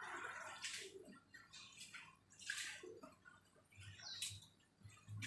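Faint water sounds: splashing and dripping in several short bursts as rice vermicelli is lifted and worked by hand in a pot of cool soaking water.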